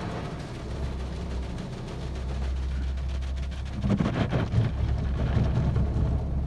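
Automatic car wash heard from inside the car's cabin: a steady low rumble, then about four seconds in the brushes and water start beating against the car, louder and uneven.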